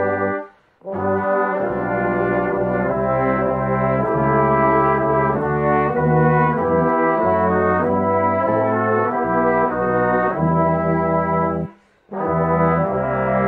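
Brass band playing full, slow chords over a low bass line, without drums. The music breaks off briefly between phrases about half a second in and again near the end.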